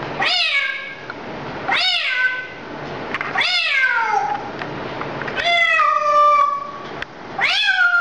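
African grey parrot mimicking a cat's meow: five meow-like calls, each rising then falling, about every two seconds; the fourth is longer and ends on a drawn-out tone.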